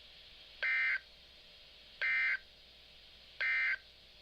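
Emergency Alert System end-of-message (EOM) data bursts: three short, loud bursts of two-tone digital warbling, evenly spaced about a second and a half apart, marking the end of the broadcast warning.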